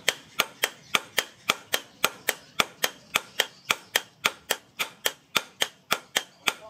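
Hand hammer forging a red-hot sword blade on a steel post anvil: a steady rhythm of sharp metal-on-metal blows, about three a second.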